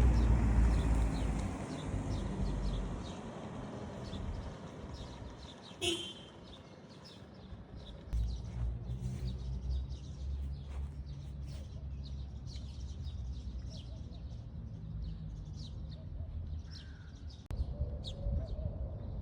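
Outdoor background noise with a low rumble, and many short bird chirps throughout.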